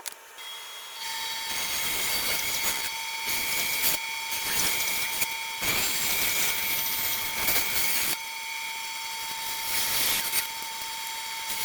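Router starting up about a second in and running with a steady high whine, cutting drawer pull recesses into plywood drawer fronts along a template. The cutting noise swells and eases as the bit moves through the wood.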